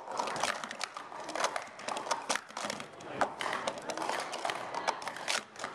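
Plastic sport-stacking cups clicking and clattering in a fast, irregular run as they are stacked up and brought down on a mat during a timed stacking sequence.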